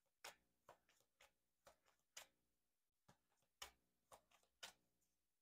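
Faint, irregular soft clicks of tarot cards being shuffled by hand, roughly two a second, over a faint steady hum.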